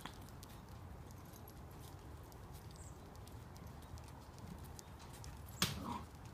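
Puppies moving about: scattered light clicks and scuffles of small paws on a hard surface, with one sharp, louder knock near the end.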